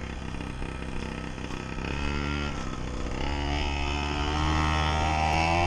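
Small two-stroke petrol engine of a 1/5-scale RC monster truck running under throttle, revving up from about two seconds in and climbing steadily in pitch through the second half.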